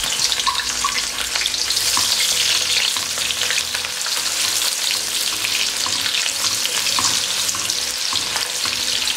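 Freshly added sliced onions sizzling and crackling steadily in hot oil in a kadai as a silicone spatula stirs them, with occasional light clicks; they are at the start of frying toward golden.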